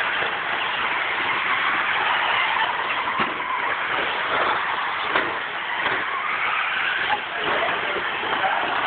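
Two-wheel-drive radio-controlled model cars racing on a dirt track: a steady mix of small motors running and tyres scrabbling on the dirt, with a few sharp knocks.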